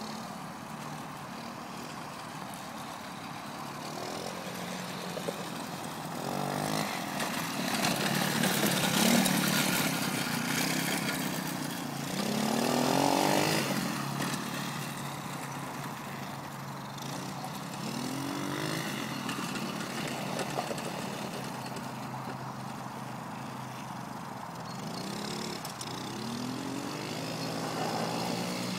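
Small youth quad bike's engine heard across a dirt track, revving up and easing off several times as it is ridden, its pitch rising and falling with each throttle change. It gets louder for a few seconds about a quarter of the way in and again near the middle as it comes closer.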